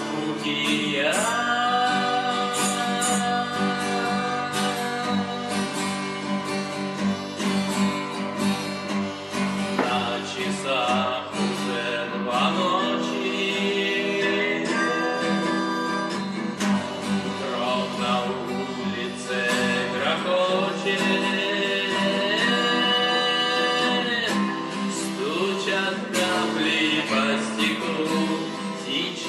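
Harmonica playing long held notes, some bent up into pitch, over a strummed acoustic guitar.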